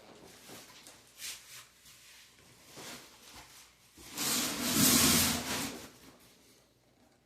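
Handling noises from a PC case and its packaging being moved: soft scattered rubs and knocks, then a louder rustle lasting about two seconds, four seconds in.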